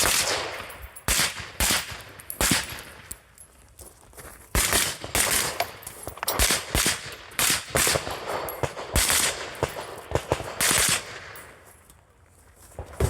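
Gunshots fired in an uneven string of about twenty, some in quick doubles and triples, with a pause of about a second a few seconds in and a lull near the end.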